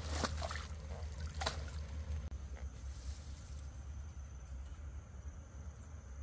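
Water trickling and splashing, with a few sharp splashes in the first second and a half, over a steady low rumble and the high, steady drone of insects.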